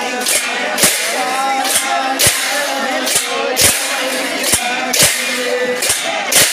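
Many pairs of brass hand cymbals clashed together in a steady rhythm, the strikes falling in pairs about every second and a half, over men singing or chanting.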